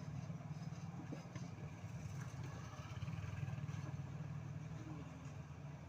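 Steady low rumble of an engine running, with a fast even pulse.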